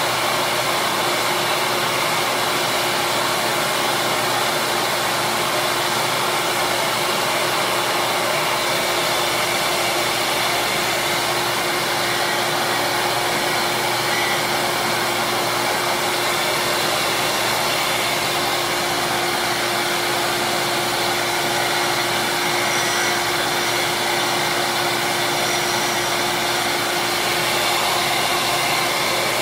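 Small electric bench disc sander running steadily, a constant motor hum under the rush of the spinning disc, as small plastic slider pieces are held against the sandpaper to shape them.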